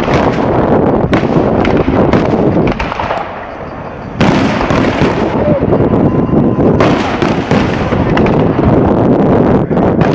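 Fireworks display: a dense, rapid run of bangs and crackles from bursting fireworks. It eases briefly about three seconds in and comes back loud about four seconds in.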